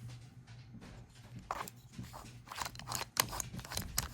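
Irregular crackling and crinkling of ceiling fan packaging being handled, with sharp clicks that pick up about a second and a half in.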